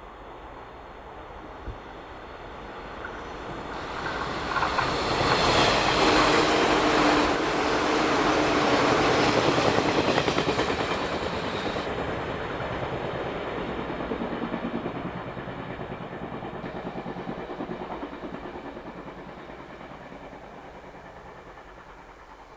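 Passenger train passing at speed, wheels clicking rhythmically over the rail joints. It swells about four seconds in, is loudest for several seconds, then fades slowly as it draws away.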